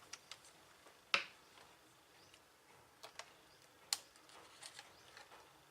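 Faint, scattered small clicks and taps of a screwdriver fastening the screw that holds a laptop's Wi-Fi card. A sharper click comes about a second in and another near four seconds.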